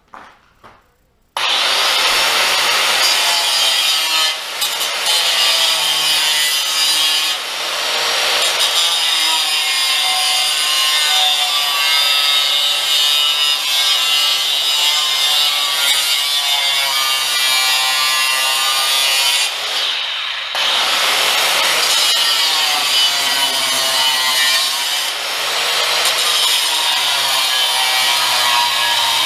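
Electric angle grinder with a Sait aluminum cutting disc cutting through 1/8-inch aluminum skid plate. It starts suddenly a second or so in, and its whine rises and falls as the disc bites, with a short break about twenty seconds in.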